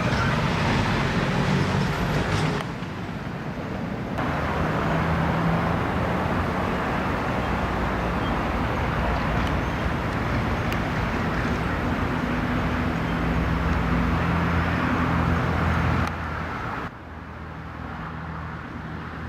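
Steady car and road-traffic noise with a low engine hum, dipping in loudness about three seconds in and again near the end.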